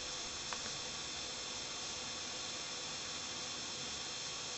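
Steady background hiss with one faint small click about half a second in, from the small steel parts of a Glock firing pin assembly as the spacer sleeve is fitted over the firing pin.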